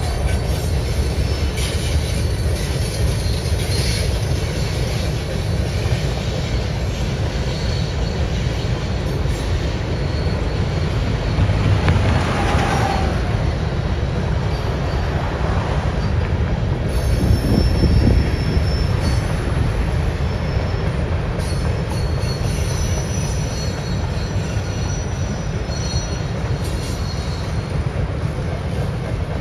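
CPKC freight train's cars rolling past, a steady rumble of steel wheels on rail with high wheel squeal coming and going in the second half.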